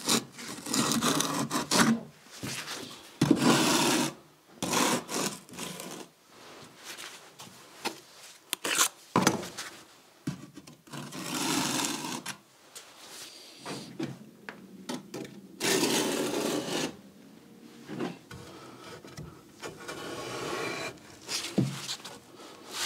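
Toothed glue applicator scraping along the top of cellular concrete blocks, spreading thin-bed block glue in repeated strokes of about a second each with short pauses between.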